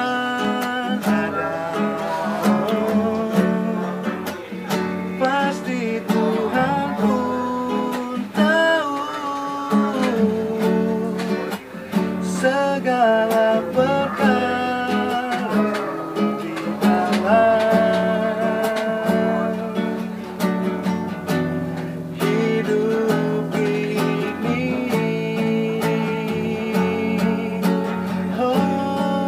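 A man singing a melodic song while strumming an acoustic guitar.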